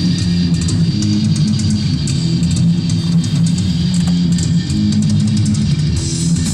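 Heavy metal music with distorted electric guitar and bass guitar playing steadily.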